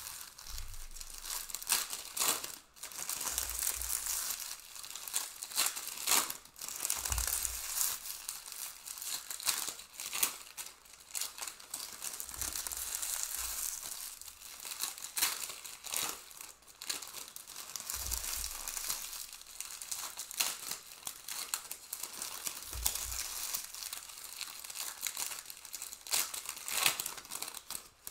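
Foil wrappers of Panini Prizm Premier League trading-card packs crinkling and tearing as the packs are ripped open and the cards handled, with many small clicks and a few dull thumps.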